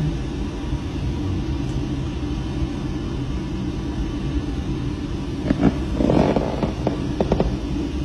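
Steady low rumble inside the cabin of an OceanGate submersible, with a few short knocks and a brief rustle between about five and a half and seven and a half seconds in.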